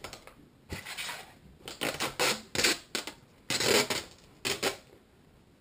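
Tape being peeled off a clear plastic GoPro display box, in a series of short noisy pulls with the plastic case crackling.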